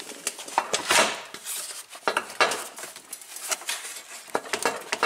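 Hard plastic and metal clattering, knocking and scraping: a car's radiator cooling fan and shroud assembly being tugged and rattled as it catches on a cooler line on its way down. Irregular sharp knocks, the loudest about a second in and near the middle.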